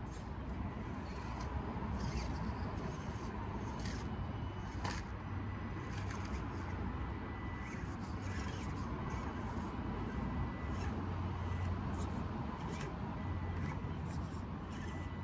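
Element Enduro24 1/24-scale RC crawler climbing over rocks: its small electric motor and gears whir on and off, with scattered light clicks and knocks of tyres and chassis on stone, over a steady low rumble.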